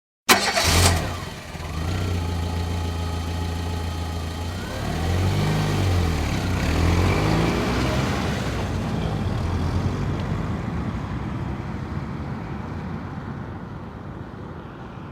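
A motor vehicle engine starts with a sudden loud burst, then runs steadily, its pitch rising and falling once around the middle before it slowly fades away.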